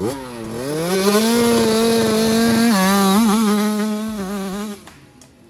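A 65cc two-stroke motocross bike's engine revving hard: a quick blip, a brief dip, then the pitch climbs and holds high under throttle, steps down slightly about halfway and wavers. The sound cuts off suddenly near the end.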